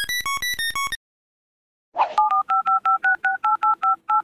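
The tail of a quick electronic beeping melody, then after a short pause a phone keypad being dialled: about a dozen quick two-tone DTMF key beeps in a row.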